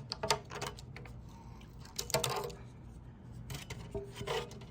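Clicks and light rattles from a Milwaukee wide-blade 25-foot tape measure being handled, in a few short clusters about a second apart.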